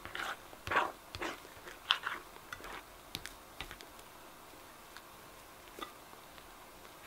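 A hand squishing and folding fluffy pink slime in a glass dish, making soft sticky squelches and crackles. The sounds come thick and fast for the first two seconds or so, then thin out to occasional small clicks.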